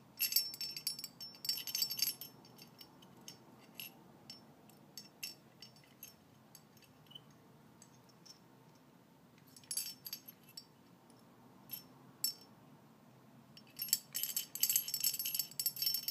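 Small steel parts of an AR-15 bolt carrier group clinking and rattling as the firing pin is worked into the bolt carrier, in quick runs of clicks: one in the first two seconds, a short one around ten seconds, and a longer one near the end, with single ticks between.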